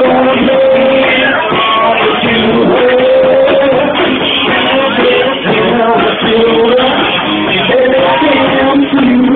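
Rock music with a singing voice over guitar, loud and dense, with a narrow, muffled top as heard through a mobile phone's microphone.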